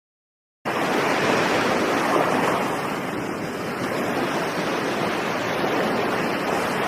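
Steady rushing of ocean waves, starting abruptly about half a second in after a short silence and swelling gently now and then.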